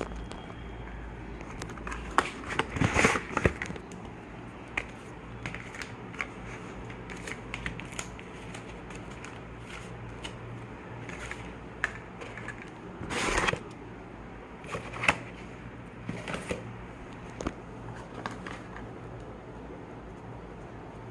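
Handling noises: scattered clicks and taps, a cluster of louder clicks about two to three seconds in and a short rustle about thirteen seconds in, over a low steady hum.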